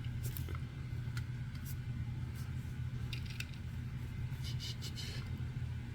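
Steady low hum with scattered light clicks and taps of a small diecast toy car being handled.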